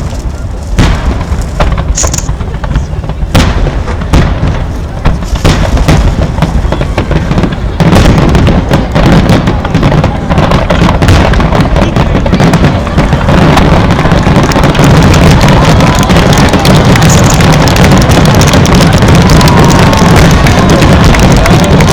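Aerial fireworks finale: separate booms at first, then from about eight seconds in a dense, unbroken barrage of rapid overlapping bangs, very loud.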